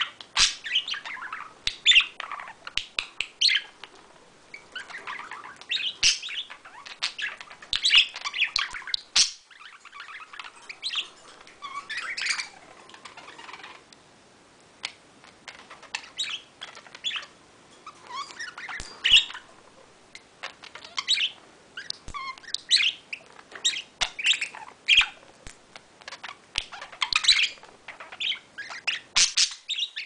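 Pet budgerigars warbling and chirping in quick, chattering runs of short high notes, with scattered sharp clicks and a brief lull about halfway through.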